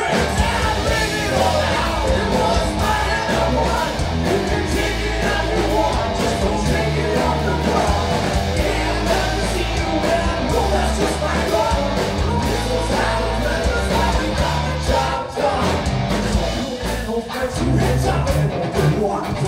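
Live rock band playing: electric guitar, bass guitar and drums, with sung and yelled vocals.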